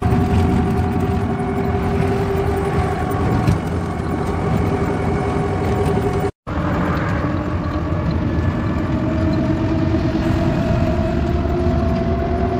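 Inside the cabin of a small rechargeable electric car on the move: steady road and wind rumble with the electric motor's whine. The whine's pitch rises slowly in the second half as the car gathers speed. The sound cuts out for a moment about halfway through.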